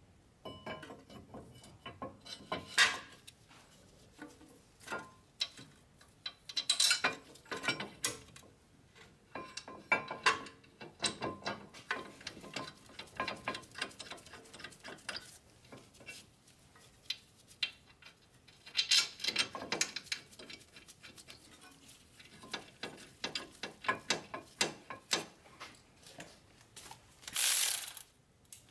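Metal clinks and knocks as a front brake caliper bracket and its bolts are handled and fitted over a brake rotor. Near the end a cordless ratchet runs for about a second, driving in a caliper bracket bolt.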